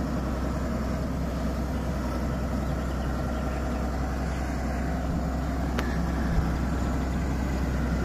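Diesel engine of a Hyundai 170W-9S wheeled excavator running steadily as the machine moves off slowly.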